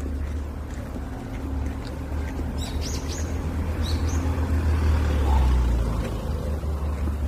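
Outdoor ambience: a steady low rumble, with a few short, high bird chirps about three and four seconds in.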